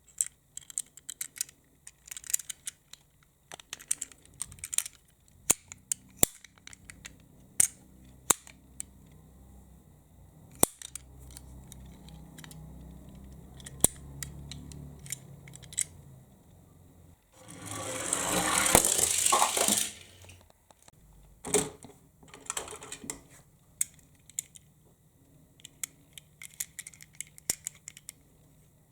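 Small toy cars being handled on a hard surface: a run of sharp clicks and light clatter. Just past the middle comes a loud rattling rush of about two seconds as a car rolls down the slope.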